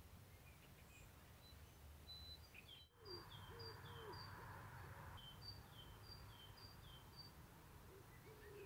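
Songbirds singing over a low wind rumble. Scattered chirps at first. The sound drops out briefly about three seconds in, then a high two-note phrase repeats about twice a second, each time a higher note followed by a falling lower one.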